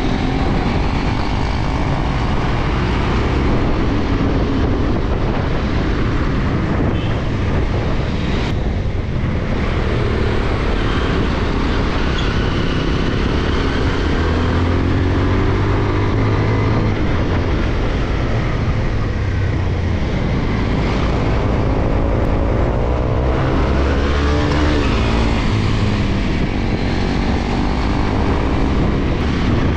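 Bajaj Pulsar NS200's single-cylinder engine running under way, its pitch rising and falling several times as the throttle opens and closes, most in the last third, with steady wind noise on the microphone.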